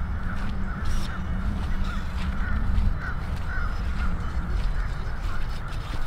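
Gusting wind rumbling on the microphone, with birds calling over and over in the background.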